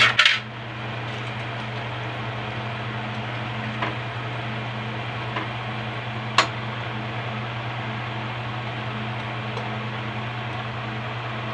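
Pot of noodle soup simmering on the stove under a steady low hum and hiss, with metal tongs clinking against the metal pot in a quick cluster at the start and once sharply about six seconds in.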